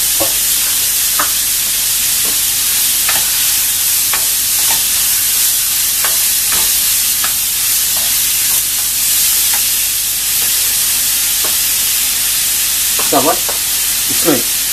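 Chopped onions and green chillies sizzling in hot oil in a kadai while being stirred with a wooden spatula: a steady frying hiss with scattered light clicks.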